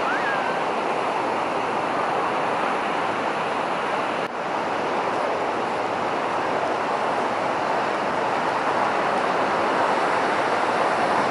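Steady wash of surf breaking on a sandy beach, an even rushing noise without let-up.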